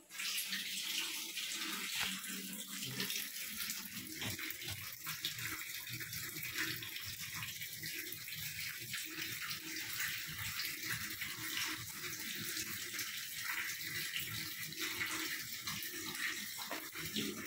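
Crackling and rustling as a hand breaks apart the resin-and-wax shell of a stingless bee nest, over a steady hiss.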